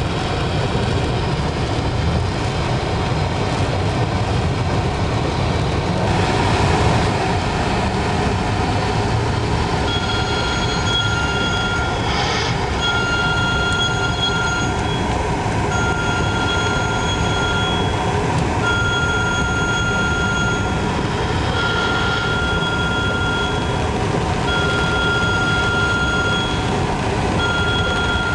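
Steady road noise inside a moving car on a rain-wet highway: engine and tyres. From about ten seconds in, a high electronic beep repeats, each one about two seconds long with roughly a second's pause between.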